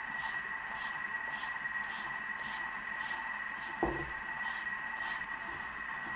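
Y-shaped vegetable peeler scraping along a raw carrot, shaving off ribbons in quick strokes about two a second, with one knock on the wooden cutting board a little before halfway.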